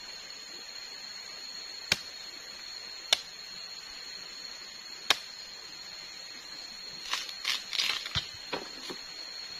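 Machete chopping into a green palm stem to open it for the palm heart: three sharp strikes a second or two apart, then a quick run of lighter knocks and scrapes near the end. A steady high-pitched hum runs underneath.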